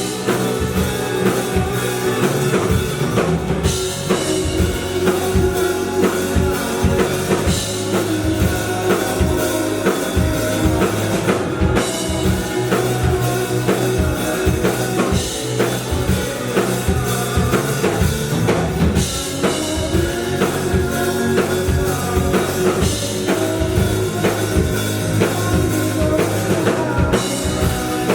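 Rock band playing live, with the drum kit keeping a steady beat under the music.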